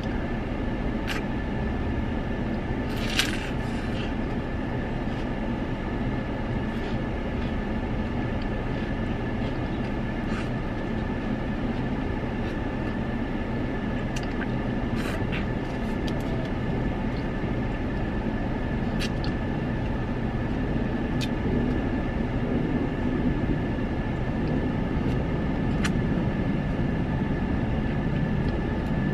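Steady droning cabin noise of a car idling, with scattered soft clicks from licking and lip-smacking as soft-serve ice cream cones are eaten.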